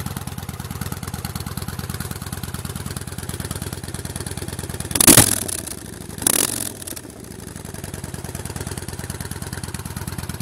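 2006 Yamaha Warrior's V-twin, on custom pipes, idling with an even pulsing beat, blipped twice in quick succession near the middle, the first rev the louder, then dropping back to idle.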